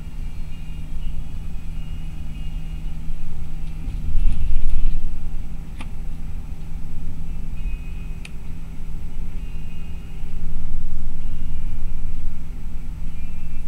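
Inside a bus driving at highway speed: a steady low rumble of engine and road with a constant engine hum. It swells louder twice, and two sharp clicks or rattles come about six and eight seconds in.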